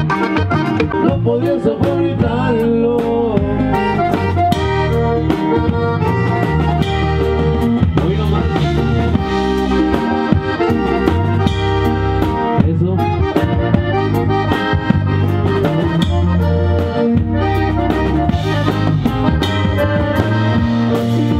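Live band playing through a PA system: an accordion lead over guitar and a drum kit keeping a steady beat.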